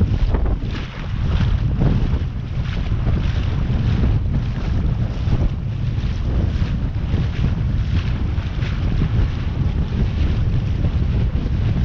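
Strong wind buffeting the microphone in constant gusts over a heavy low rumble.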